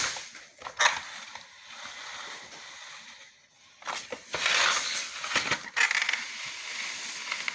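Hand-handling noise of a Hoover WindTunnel T-Series vacuum's cord rewind: sharp plastic clicks and knocks with scraping rustles as the power cord is pushed back in by hand. The rewind has just broken.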